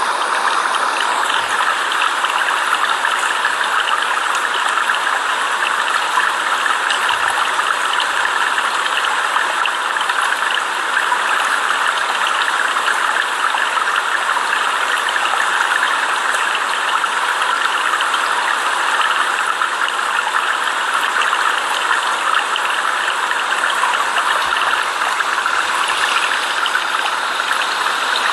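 Flowing water rushing steadily, an even unbroken hiss with no changes.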